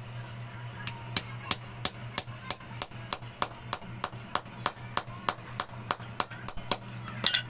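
Juki sewing machine motor humming steadily, with sharp, evenly spaced taps about three a second that start about a second in and stop just before the end.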